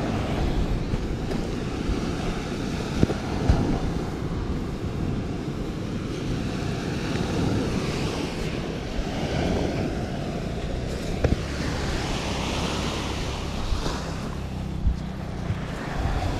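Wind buffeting the microphone over the wash of small waves breaking on a sandy beach, with a few short knocks.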